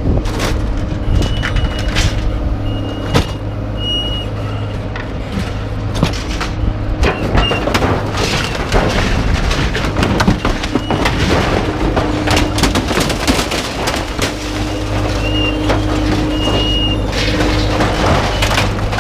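A vehicle engine running steadily under repeated metal clanks and knocks, with a few short high beeps scattered through: scrap metal being unloaded at a scrapyard.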